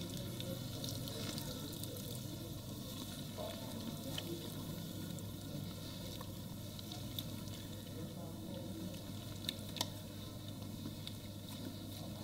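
Steady hiss of water running from a handheld shower sprayer onto a lathered head and into the sink, with the wet squish of hands scrubbing and rinsing the scalp. Two sharp clicks come close together about two-thirds of the way through.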